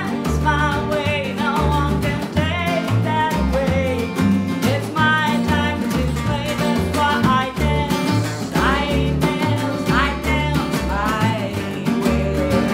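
Small band playing an upbeat song live: strummed acoustic guitar, a Gibson archtop electric guitar, upright bass and drum, with the bass notes falling in a steady, even beat.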